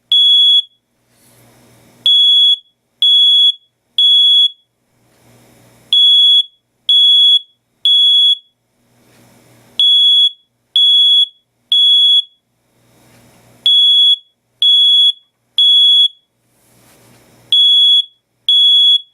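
Code One smoke alarm going off in response to smoke: loud, high-pitched beeps in groups of three, the temporal-three alarm pattern, the groups repeating about every four seconds.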